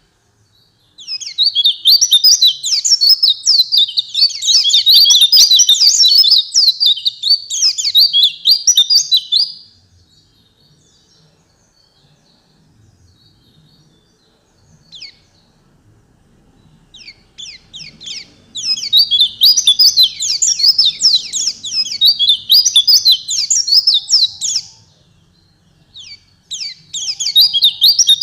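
White-eye (pleci) singing in long, fast, high-pitched bursts of rapid chirping notes. Three runs of song are separated by pauses with a few faint calls.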